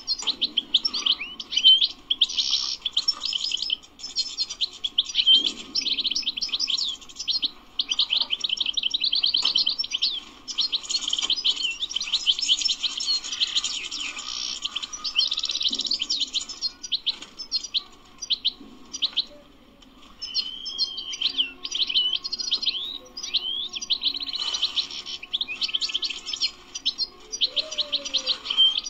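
European goldfinch singing its fast twittering song: long runs of quick chirps, buzzes and trills, with a short break a little past the middle.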